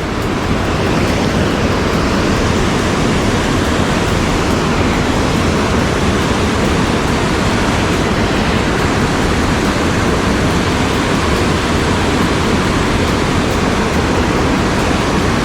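Waterfall pouring off a cliff into the creek close by: a loud, steady rush of falling water.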